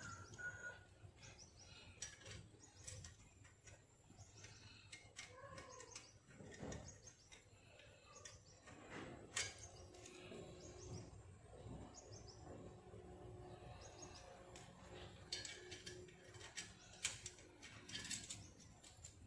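Faint scattered clicks and light metal taps from hands fitting a motorcycle exhaust muffler at its mounting bracket, with birds chirping in the background.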